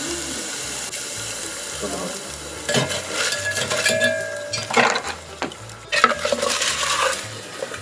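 Liquid nitrogen sizzling as it boils off in a steel pot of lemon sorbet mix. From about three seconds in, a wooden spatula stirs and scrapes the pot in uneven strokes.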